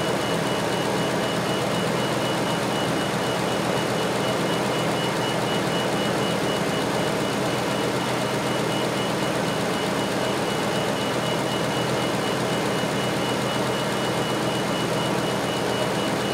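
Car engine idling steadily during an alternator output test with the headlights, wipers and other electrical loads switched on. A thin, steady high tone runs on top of the engine noise.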